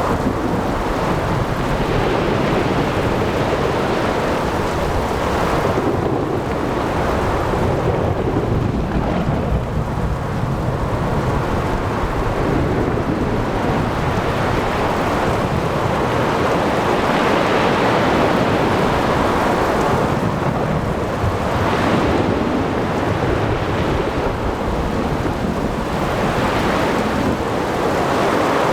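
Thunderstorm at sea: continuous heavy rain and surf noise under rolling thunder, with the rumble swelling and easing every few seconds.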